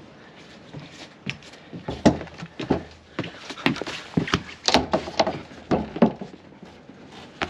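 Irregular series of knocks and thumps, a dozen or so, densest and loudest in the middle, from someone moving about and handling gear on a sailboat's deck.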